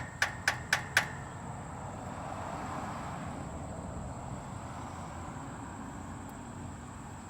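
Four sharp metal knocks in quick succession, about four a second: a hammer tapping a seized starter motor to try to free it. They are followed by a steady rushing noise.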